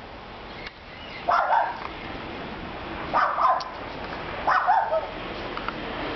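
A dog barking behind a fence in three short bouts, about a second and a half apart.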